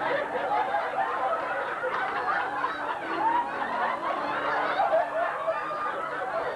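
Audience laughing, many voices overlapping without a break.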